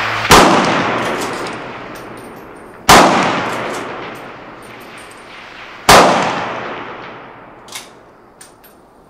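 Three rifle shots from a .308 Savage Impulse fitted with a Rugged Rx muzzle brake, fired about three seconds apart. Each shot has a long echoing decay under the range roof. A few faint clicks follow near the end.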